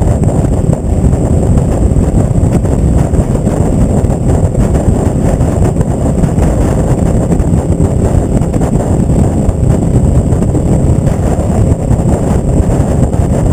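Kawasaki ER-5's parallel-twin engine running steadily at road speed through a short, loud Delkevic Mini slip-on exhaust, heard from a tank-mounted camera with wind buffeting the microphone.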